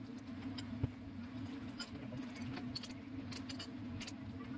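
Canned sardines in tomato sauce simmering in a steel wok, the bubbling sauce giving scattered small pops and ticks over a steady low hum.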